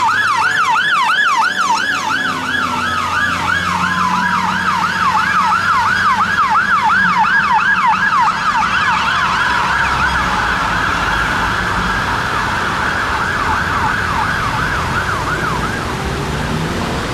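Fire engine sirens sounding together: one on a fast yelp of about two and a half up-and-down sweeps a second, another on a slow wail rising and falling beneath it. The yelp stops about a second before the end.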